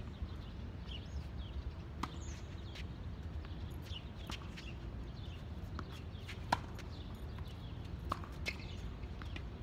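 Tennis balls struck by rackets and bouncing on a hard court during a rally: a few sharp pops, the loudest about six and a half seconds in, over a steady low rumble.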